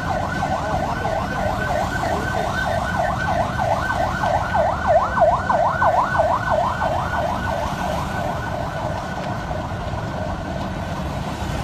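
Emergency vehicle siren in a fast yelp, rising and falling about four times a second and fading near the end, over a steady low rumble.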